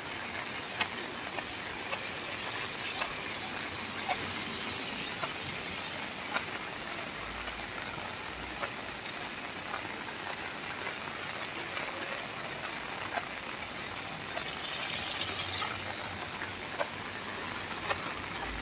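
Steady rain falling on a wet paved road, with scattered sharp drip ticks close by.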